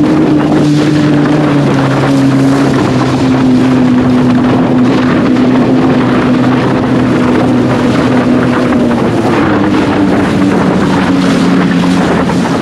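Flipsky 70165 brushless electric motor driving a SUP board at speed: a steady whine that drops in pitch about two seconds in and climbs again near the end, over rushing water and wind on the microphone.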